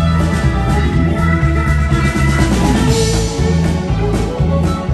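Live rock band playing an instrumental passage: electric guitar lines over a pulsing bass guitar line and a steady drum-kit beat, with no singing.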